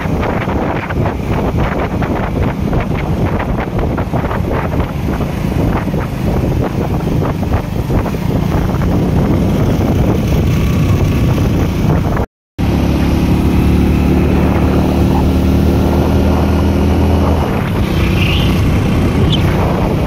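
Wind buffeting the microphone on a moving motorcycle, with the bike's engine running underneath. After a brief cut about twelve seconds in, a steady low engine hum stands out more clearly under the wind.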